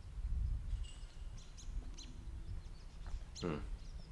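Small birds chirping and calling among the trees, over a low rumble of wind on the microphone. About three and a half seconds in there is a brief falling, voice-like sound.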